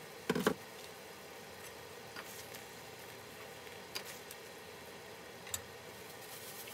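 Chicken breasts sizzling in a glaze in a pan, a steady low hiss. A sharp double clatter just after the start is the loudest sound, and a few light clicks follow as tongs touch the pan.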